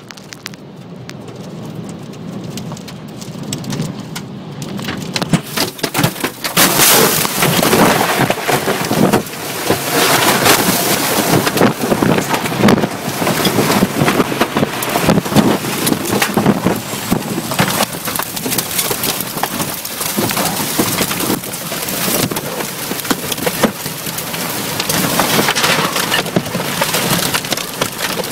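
Tornado wind and rain battering a car, heard from inside: a rushing noise that builds over the first six seconds and then stays loud, with rain and flying debris cracking against the car's body and glass throughout.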